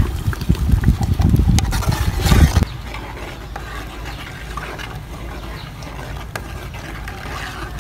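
Wind buffeting the microphone, with a few scrapes of a ladle stirring thick tomato sauce in a metal pot over a wood fire. The rumble cuts off abruptly about two and a half seconds in, leaving a quieter open-air background with faint scattered ticks.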